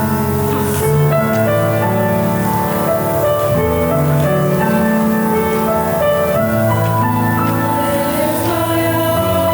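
Slow music in long held chords: a choir singing with piano.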